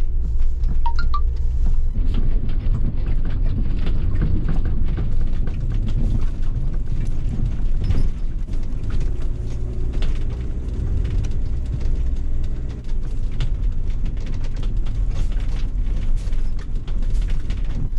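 Motorhome driving slowly over a rough, rutted dirt track: a continuous low rumble of engine and road, with frequent knocks and rattles from the jolting cab.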